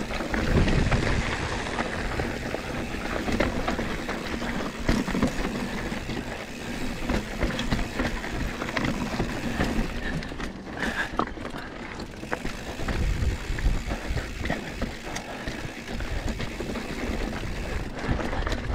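Mountain bike riding over rough, rocky trail: a steady rush of tyres on dirt and rock, with many small knocks and rattles from the bike throughout.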